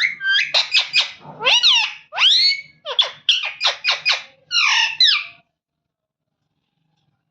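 Indian ringneck parrot vocalising in a quick series of high, sweeping chattering calls. The calls stop abruptly about five seconds in.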